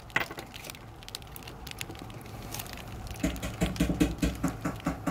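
Small coins clicking against each other as they are handled in the fingers. A quick, even run of light clicks, about four a second, starts about three seconds in.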